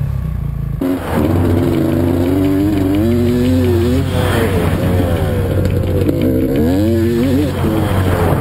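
Dirt bike engine revving hard while being ridden, its pitch climbing and dropping several times as it accelerates and changes gear. The engine sound changes abruptly about a second in.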